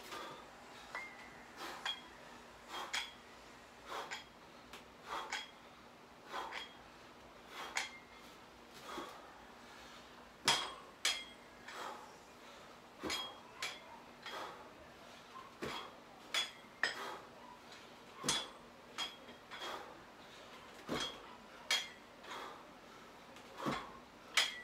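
Plate-loaded iron dumbbells clinking with each repetition, their plates and collars knocking together about once a second, sometimes as a quick double clink.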